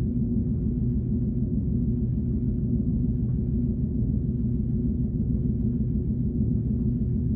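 Alien tone sound effect: a steady low drone with a few held pitches that do not change.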